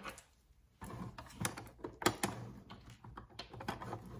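Irregular small clicks and taps of hard plastic as toy pieces and a plastic case's compartment door are handled, with a sharper click about two seconds in.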